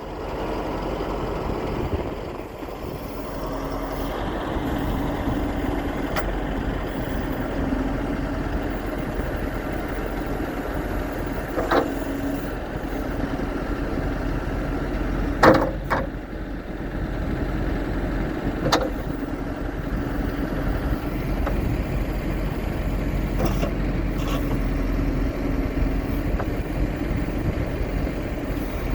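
2010 John Deere 310SJ backhoe loader's diesel engine running steadily at idle, with a few short sharp knocks in the middle stretch, the loudest about halfway through.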